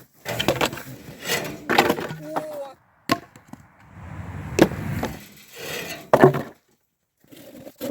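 Firewood knocking and cracking: about five sharp wooden strikes, roughly a second or more apart.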